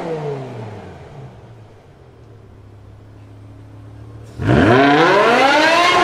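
BMW M5 E60's 5.0-litre S85 V10 dropping back from a rev to a low idle inside a road tunnel. About four seconds in it goes to full throttle, the note climbing steeply and then holding high as the car pulls away.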